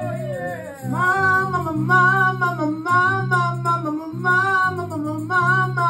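A woman singing a slow gospel worship song into a microphone, with long held and sliding notes, over steady instrumental accompaniment of sustained low chords.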